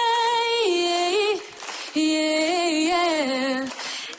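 A woman singing solo a cappella, with no accompaniment: a long held note that steps down, a short breath pause, then a new phrase with small turns in pitch.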